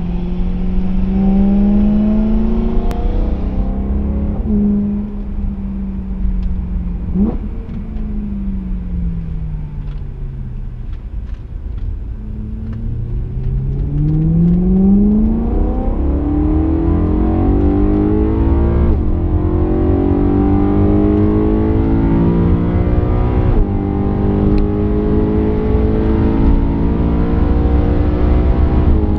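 BMW M3 E92's 4.0-litre V8 heard from inside the cabin under hard acceleration, revs climbing and dropping back with each quick gear change. The revs fall away for a few seconds around the middle as the car eases off, then pull up through the gears again.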